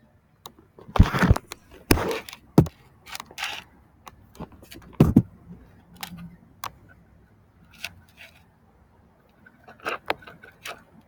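Irregular clicks, knocks and scrapes from hands squeezing and handling a toy volcano kit to make it erupt, loudest about a second in and again near five seconds.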